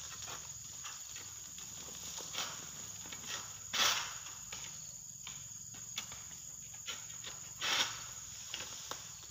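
Steady high-pitched insect drone, with light scattered rustling and two louder brief rustling swishes, about four and about eight seconds in.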